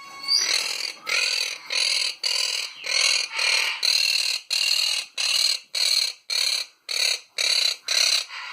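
Quaker parrot squawking over and over: short harsh calls, evenly spaced at about two to three a second.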